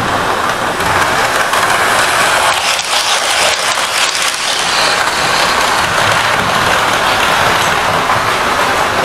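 OO gauge model train running on the layout's track: a steady whirring run, with a cluster of clicks about three to four seconds in as the wheels pass over rail joints and points.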